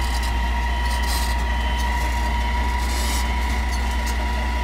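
Atlas Copco ROC D7 crawler drill rig running steadily as it climbs onto a lowboy trailer: a deep diesel engine hum with a steady high whine over it. Two short hisses about a second and three seconds in.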